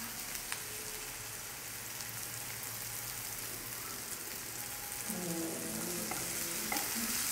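Stuffing sizzling in oil in a frying pan, a steady hiss, with a wooden spatula stirring through it near the end.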